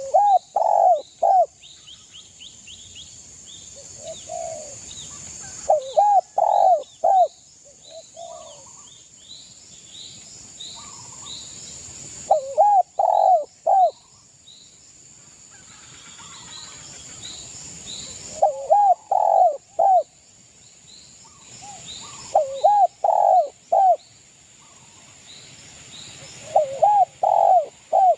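Spotted dove (derkuku) cooing: a phrase of three or four low, arched coo notes, repeated about six times, every four to six seconds. Small birds chirp faintly and high in the background.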